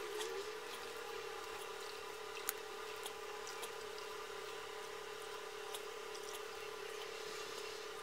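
Faint wet squishing of ground coconut pulp being wrung out in a cloth over a bowl of coconut milk, over a steady low hum, with a light tick about two and a half seconds in.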